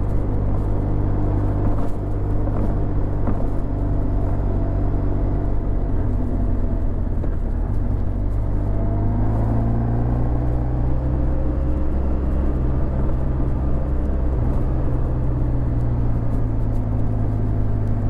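Honda VFR1200X Crosstourer's V4 engine running through an Akrapovic titanium exhaust while the bike is ridden, a steady deep exhaust note. Its pitch shifts about six seconds in and climbs again around nine to ten seconds in.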